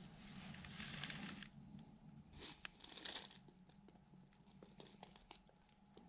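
Two short hisses from an aerosol spray can fired through a straw nozzle, about two and a half and three seconds in, with soft rustling before and small handling clicks after.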